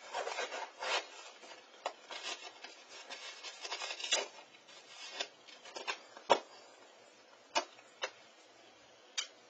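A parcel being opened by hand: scraping, rubbing and tearing of packaging for about five seconds, then four sharp clicks, the loudest about six seconds in.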